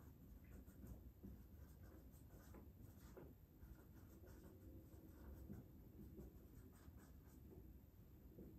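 Faint strokes of a dry-erase marker writing on a whiteboard, short and irregular.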